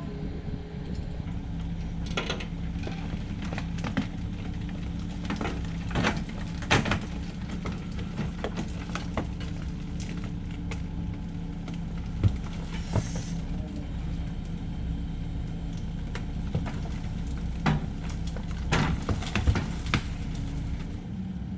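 Cat 308 excavator's diesel engine running steadily, with scattered sharp knocks and clanks as it digs.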